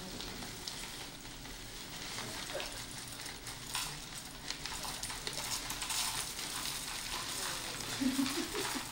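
Plastic cereal bag being handled and pulled open, a steady crinkling rustle with scattered crackles. A brief low hum from a voice comes near the end.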